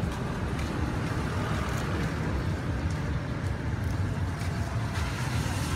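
Steady street background noise: a low, even rumble of passing traffic, with a few faint clicks.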